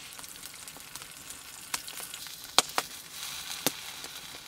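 Russula mushrooms frying in vegetable oil in a pan over a wood fire, a steady sizzle. A few sharp clicks break through it.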